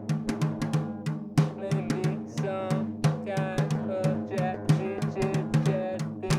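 Live drum kit, with rapid snare and bass drum hits, played over a busy layer of pitched sampled sounds triggered by typing on a computer keyboard with Soundplant.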